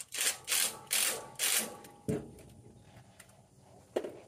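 Ratchet clicking in four quick strokes, tightening hose clamps on radiator hoses, followed by a knock about two seconds in and another near the end.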